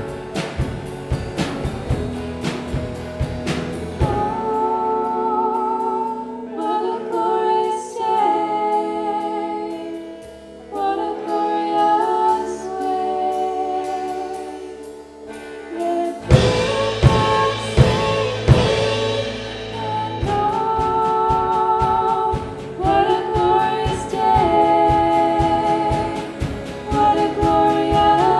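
Live worship band of electric guitars, bass guitar and drum kit, with a woman singing. The drums and bass drop out about four seconds in, leaving the singing over lighter accompaniment, and the full band comes back in about halfway through.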